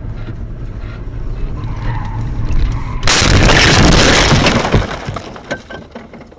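Steady road and engine rumble inside a moving car, then about three seconds in a sudden loud crash of the car's collision, a burst of crunching and breaking lasting about a second and a half, followed by scattered clicks and rattles dying away.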